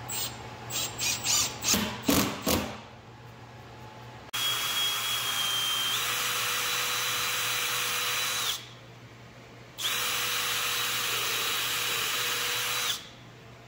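Power tool being run, most likely a drill: about seven short trigger bursts in the first few seconds, then two steady runs of about four seconds each with a high whine, separated by a pause.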